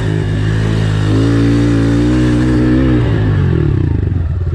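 Honda CRF110F pit bike's small single-cylinder four-stroke engine revving: the pitch climbs over the first second, holds high for about two seconds, then drops back toward idle.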